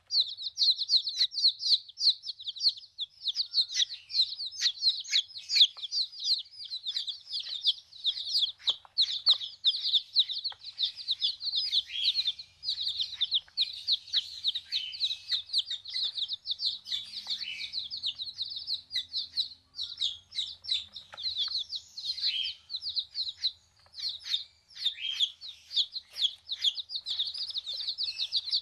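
Many baby chicks peeping constantly, a dense chorus of high-pitched chirps.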